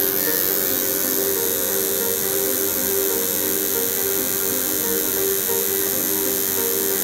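Coil tattoo machine buzzing steadily as its needle works into the skin of the scalp.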